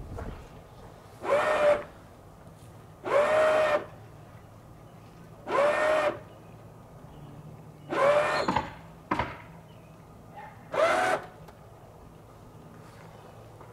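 Electric motor of a truck camper's corner jack whining in five short bursts, each rising briefly in pitch as it spins up and then holding, as the camper is adjusted on its jacks. A sharp click comes between the fourth and fifth bursts.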